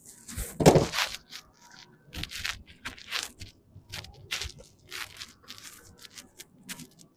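Irregular crackling and rustling of packaging being handled while a box of new brake pads is fetched and opened, with a louder clatter just under a second in.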